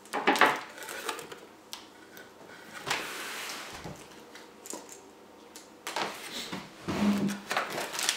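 Plastic air-column packing wrap rustling and crinkling as it is handled and a laptop is slid out of it, with the cardboard box shifting. Irregular, with louder bursts just after the start, about three seconds in, and again from about six seconds on.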